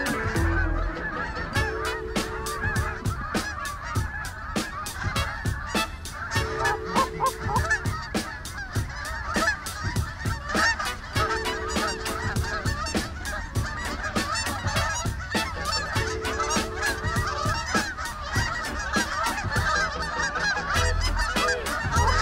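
A large flock of geese honking and calling over one another without a break, a dense chorus of overlapping calls as they circle in. Music with a steady beat and a repeating chord plays underneath.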